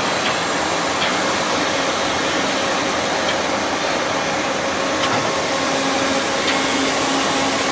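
Index MS42C CNC multi-spindle lathe running: a steady whir of the turning spindles with coolant spraying against the guard window, and a few faint clicks.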